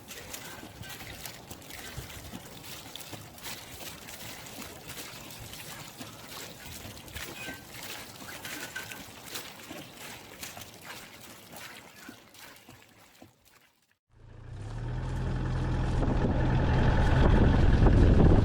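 Campfire crackling: a haze of many small pops and snaps, which cuts off abruptly about thirteen seconds in. After a brief silence, a much louder steady low rumble with a held hum fades in and keeps rising to the end.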